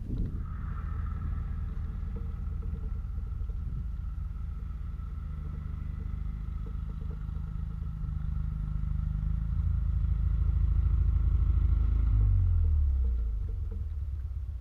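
A vehicle motor running steadily with a thin whine. It grows louder, then its pitch falls as it slows about twelve seconds in.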